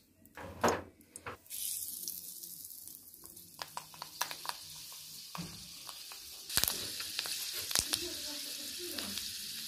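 A metal wok on a clay stove sizzling as it heats: a knock about half a second in, then a high hiss from about a second and a half in that grows louder with sharp crackles about six and a half seconds in.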